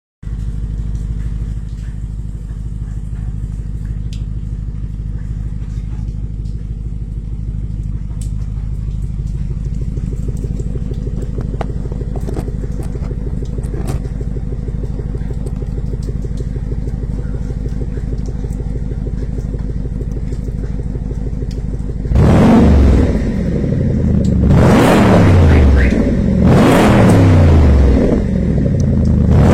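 An engine idling steadily, then revved repeatedly in short blips, about four times, from about three quarters of the way in.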